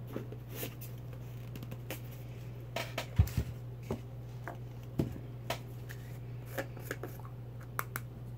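Craft-supply jars and lids handled on a tabletop: scattered clicks and knocks as containers are closed, moved and set down, the loudest a thump about three seconds in, and a screw-top lid coming off a small plastic jar near the end. A steady low hum runs underneath.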